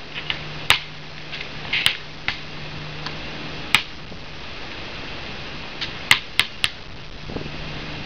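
A basketball bouncing and hitting the rim on a hard court: scattered sharp knocks, three in quick succession about six seconds in, over a steady low hum.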